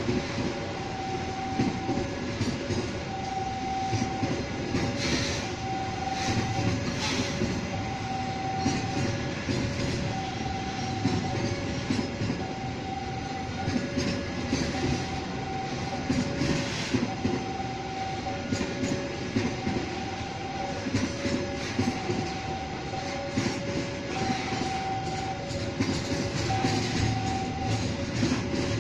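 Container freight train's flatcars rolling past at close range, wheels rumbling and clattering over the rails with irregular rattles. Over it, a two-tone warning signal alternates high and low, each tone under a second long, repeating steadily.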